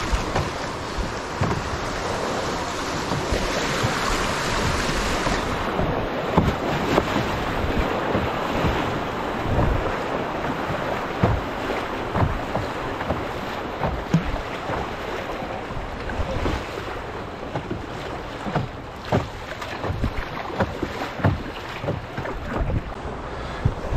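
Swift, choppy river water rushing and splashing against the hull of an Esquif Pocket Canyon solo canoe under way, with wind on the microphone and frequent irregular knocks and splashes. The higher hiss drops away about five seconds in.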